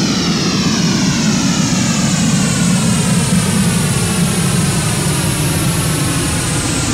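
Synthesised jet-aircraft sound from a KORG iMS-20 synthesizer: a steady loud noise with a sweeping, flanger-like phasing whose pitches fall and then level off, imitating a jet passing overhead.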